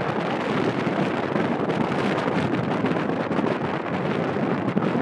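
Strong wind buffeting the microphone: a loud, steady rushing noise that flutters unevenly.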